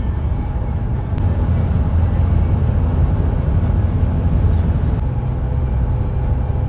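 Steady low rumble of a moving road vehicle.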